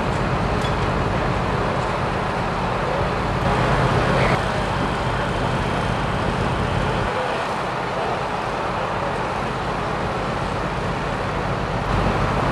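A large truck's engine idling nearby: a steady low drone under a constant noisy wash. The low drone fades about seven seconds in and returns near the end.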